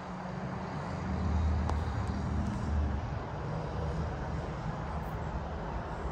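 Vehicle engine running at a low, steady idle: a deep hum that swells a little between one and three seconds in.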